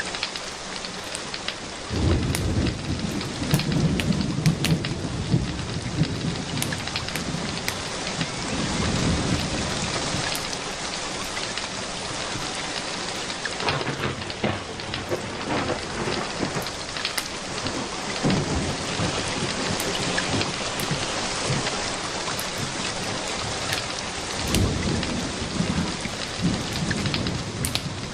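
Steady rain falling, with distant thunder rolling in low rumbles several times: the first about two seconds in, another near the end.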